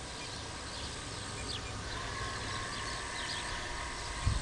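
Outdoor ambience with small birds chirping repeatedly over a low rumble. A faint steady whine joins about halfway through.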